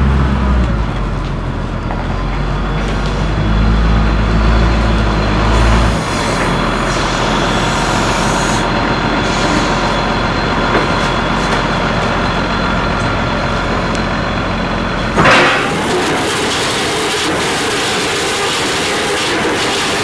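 Michigan L70 wheel loader's diesel engine running under load while it carries lumber, loudest for the first six seconds or so, then steady. About fifteen seconds in, a sudden loud burst, after which the engine tone gives way to the steady noise of sawmill machinery.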